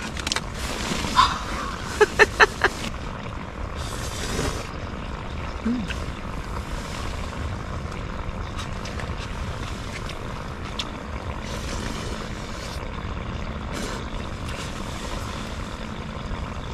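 Someone eating cup ramen with chopsticks: brief noodle slurps and small clicks over a steady low rumble.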